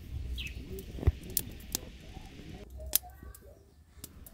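Wood fire crackling under a clay cooking pot, with scattered sharp pops, while birds call in the background.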